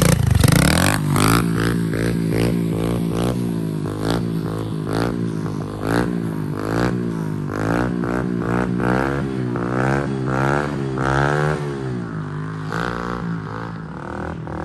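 125cc dirt bike engine being ridden, revved up and dropping back again and again, roughly once a second. The repaired bike is running with its new carburetor.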